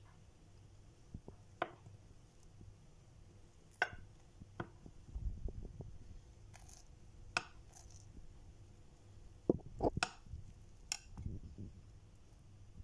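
Metal spatula clicking and scraping against a glass baking dish as a square of chocolate cake is prised out: scattered sharp clicks and knocks a second or more apart, with some low handling rumble between them.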